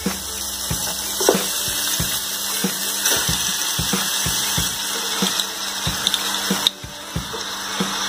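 Raw chicken pieces sizzling in hot oil in an aluminium pot as they are dropped in, with many soft knocks of pieces landing. The hiss eases a little about seven seconds in.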